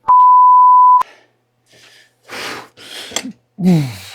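A censor bleep: one steady, loud, high beep lasting about a second, laid over a cuss word. After it come a man's breathy, straining sounds and a groan that falls in pitch near the end.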